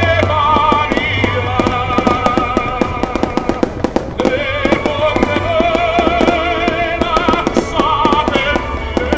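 Fireworks crackling densely, many rapid sharp cracks, over loud music with a wavering sung melody.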